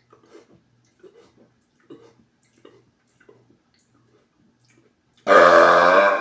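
A man's very loud burp about five seconds in, a single deep pitched belch lasting about a second, registering 121.7 decibels on a sound meter. Before it, faint soft sounds come about every three-quarters of a second.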